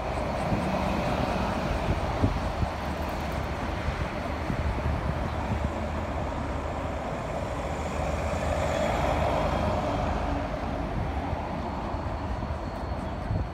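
Wind buffeting a phone microphone on a moving bicycle, with steady tyre and street noise that swells for a few seconds near the middle.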